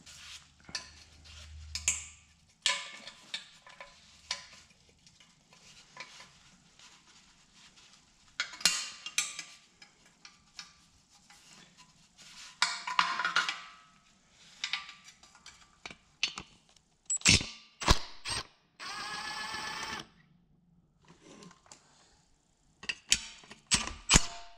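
Hand tools working on the bolts of a John Deere 425 lawn tractor's muffler: scattered metal clicks, clinks and clatter of wrench and sockets on steel, with a steady whirring for about a second late on.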